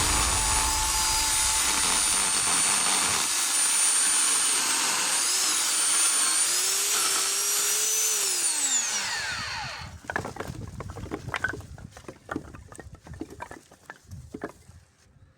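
GTM electric chainsaw running with a steady high motor whine, then released about eight seconds in, its pitch falling as the motor and chain spin down. After that come scattered light knocks and clatters.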